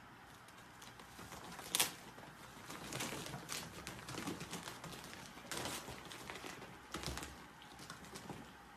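Ferrets scrambling in and through a coiled clear corrugated plastic hose: an irregular clatter of claws clicking and scraping on the ridged plastic, with crinkling as the hose shifts. The sharpest click comes a little under two seconds in.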